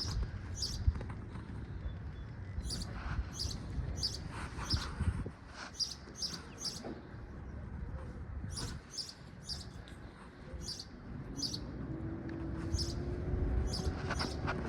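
A small bird chirping, short high chirps about one or two a second, over a low rumble. A faint steady hum comes in near the end.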